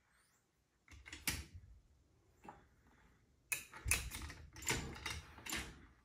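Metal clicks and scraping from a steel lever linkage on a lathe tailstock being worked by hand with a small hand tool: one click about a second in, then a quick run of clicks and scrapes in the second half.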